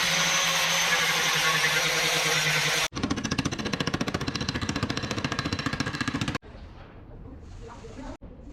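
Body-shop power tools in quick cuts: about 3 s of a steady whirring tool with a low hum, then a tool rattling rapidly and evenly for a few seconds, then quieter workshop noise.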